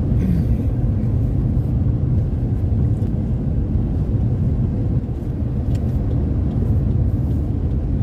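Ford Territory SUV being driven, a steady low rumble of engine and road noise heard from inside the cabin.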